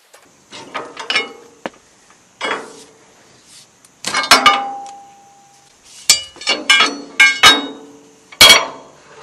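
Steel bar knocking against the power take-off shaft housing on a Massey Harris 30 tractor: about nine sharp metal clanks at uneven intervals. The loudest, a few seconds in, rings on for over a second. The housing is working loose.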